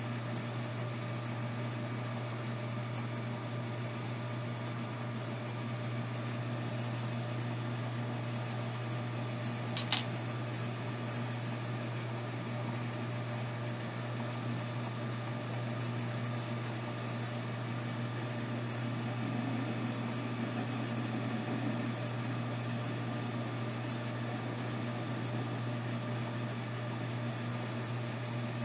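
Metal lathe running with a tool-steel shaft spinning in the chuck: a steady machine hum from the motor and gearing, with one sharp tick about ten seconds in.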